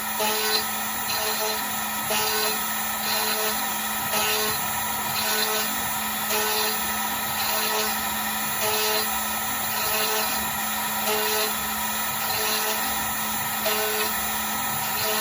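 DIY CNC router carving wood: the spindle runs with a steady hum and high whine while a short whine and a burst of cutting noise repeat about once a second as the machine works back and forth in passes.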